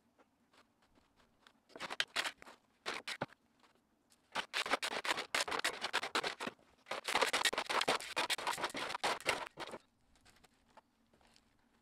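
Rounded drain rock scraping and clattering as it is dumped and spread around a drain pipe. A couple of short scrapes come first, then a dense stretch of clattering for about six seconds that stops suddenly near the end.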